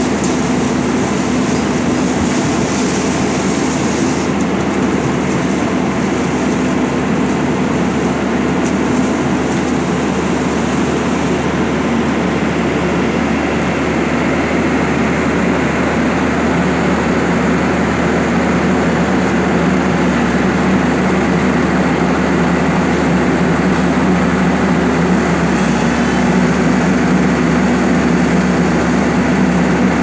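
Crane machinery working a clamshell grab: its engine and winch running with a loud, steady drone. Over the first few seconds a hiss of mud and water pouring from the opened grab, and the machine's note shifts slightly near the end.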